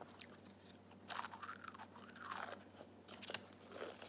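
Pringles potato chip being bitten and chewed: a series of crisp crunches, the first and loudest about a second in, with several more after it.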